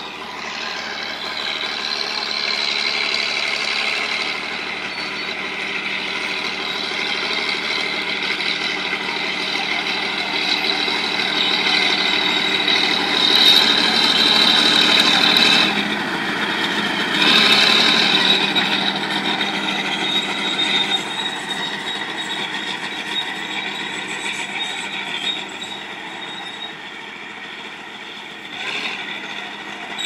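Bulldozer running and working, its engine carrying a steady high whine. It grows louder toward the middle, drops briefly, swells again, then eases off.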